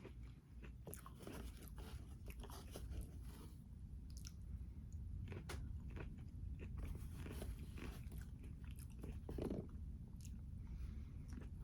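A person chewing and biting food close to the microphone, with many irregular crunches.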